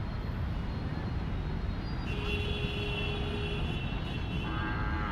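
Steady low outdoor rumble of background noise, with a few faint, thin high tones that come in about two seconds in and again near the end.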